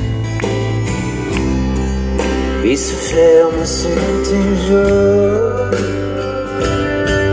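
Live band music: acoustic guitar, electric bass and keyboard playing a country-folk song with a steady beat, with a melody line that slides in pitch in the middle.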